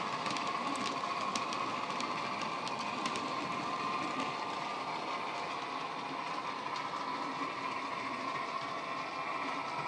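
Model railway wagons clicking over the track as they roll past, over the steady sound of a Dapol Class 68 diesel's DCC sound decoder playing through its megabass speakers further down the line. The clicking thins out after about four seconds while the engine sound carries on.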